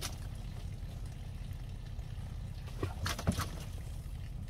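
Water trickling and splashing as a caught largemouth bass is handled and let go back into the water, with two short splashy knocks about three seconds in, over a steady low rumble.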